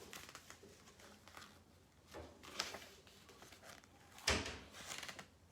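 Faint rustling and soft knocks of a book being handled, with the sharpest sound about four seconds in.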